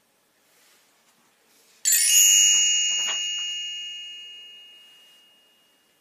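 A single bright bell chime about two seconds in, ringing on and fading slowly over about four seconds: the page-turn signal of a read-along storybook.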